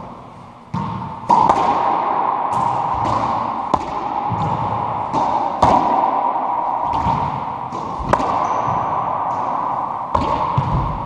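Racquetball rally: the hollow rubber ball smacking off racquets and the court's walls and floor, a dozen or so sharp hits at irregular spacing, each ringing briefly in the enclosed court.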